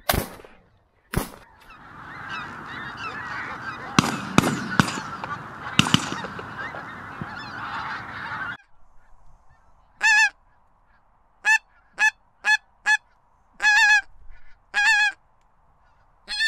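Two shotgun shots about a second apart, then a flock of pink-footed geese calling, many voices overlapping in a dense clamour for several seconds that cuts off suddenly. After that, a handful of short, clear single goose calls.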